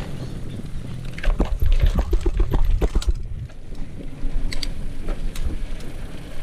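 Mountain bike rolling over stone paving, its frame and parts rattling with sharp clicks and knocks, most thickly from about a second to three seconds in and again near five seconds. Wind rumbles on the microphone underneath.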